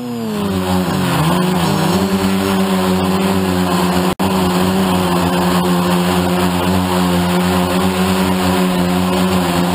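DJI F450 Flame Wheel quadcopter's four brushless motors and 9-inch propellers humming, heard from the camera on the frame. The pitch wavers up and down for the first two seconds, then holds steady. There is a brief break in the sound about four seconds in.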